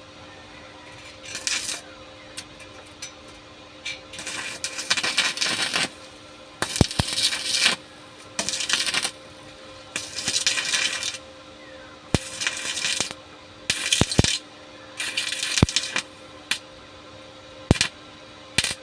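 Electric arc welding laid down as a string of short crackling welds on steel, each lasting from under a second to about two seconds, with sharp clicks between them. A faint steady electrical hum runs underneath.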